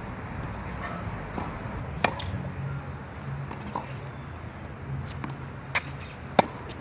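Tennis ball being struck by rackets and bouncing on a hard court during a rally: sharp pops, a loud one about two seconds in and two more close together near the end, with fainter ones between.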